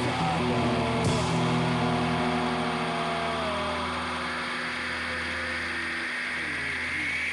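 Amplified electric bass and guitar notes left ringing through the amps and slowly dying away, with a sharp click about a second in and a high feedback whine rising near the end.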